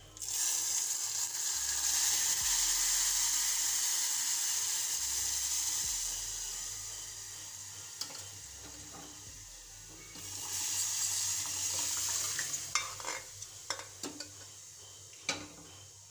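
Blended toor dal poured into a hot-oil spice tempering in a metal pot, setting off a sudden loud sizzling hiss that slowly dies down, then sizzling up again about ten seconds in as more dal goes in. A few sharp metal clinks near the end.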